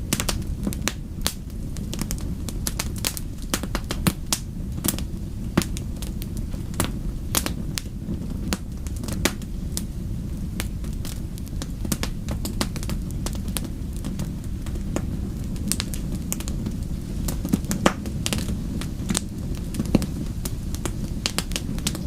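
Fire burning in a fireplace: irregular sharp crackles and pops over a steady low rumble of flames.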